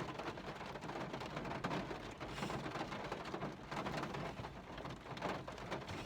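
Rain falling on a surface: a steady hiss full of small irregular ticks, with a low rumble underneath.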